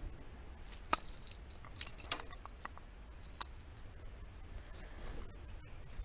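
Several sharp metallic clicks and light rattles as fishing pliers work a crankbait out of a bowfin's mouth, over a steady low rumble.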